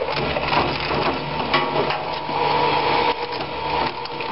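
QS15WL twin-shaft shredder running with a steady hum, its rotating cutters crunching hard-drive fragments in irregular sharp cracks.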